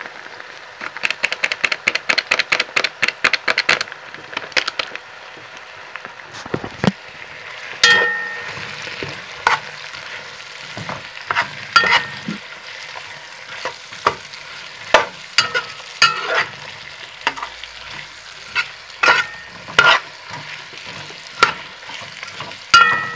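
Diced carrot and onion sizzling in oil in a hot kazan while being stirred with a metal spoon. A quick run of clicks comes in the first few seconds, then sharp ringing knocks of the spoon against the pot every second or two.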